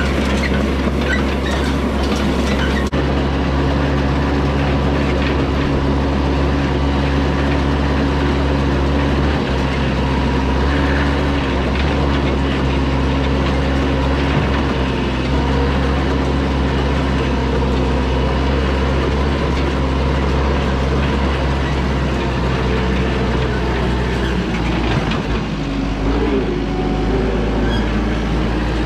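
Yanmar compact tractor's diesel engine running steadily under load while pulling a hay rake, its note shifting briefly near the end.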